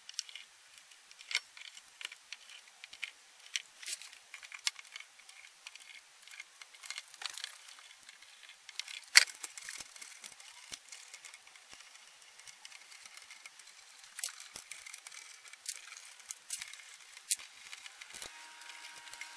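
Small screws being backed out of a vintage Philco 077 signal generator's metal front panel with a screwdriver: scattered light clicks, ticks and scrapes of metal on metal. One sharper click comes about nine seconds in.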